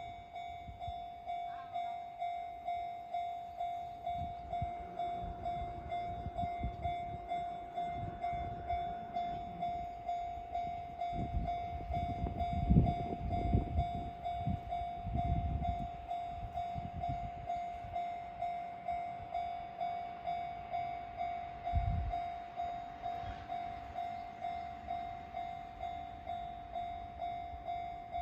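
Japanese level-crossing warning bell sounding its steady, rapidly repeated 'kan-kan' tone. A Nishitetsu train rumbles over the crossing about halfway through.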